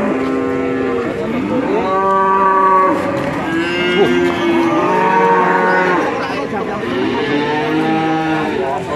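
Cattle mooing: several long, drawn-out calls at different pitches, overlapping one another and following in close succession.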